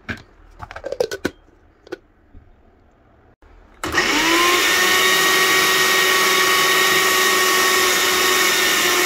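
A few light knocks and clicks, then about four seconds in a countertop blender starts with a brief rising whine and runs steadily and loudly, blending a thick mix of tomato paste, crayfish and onions with no added water.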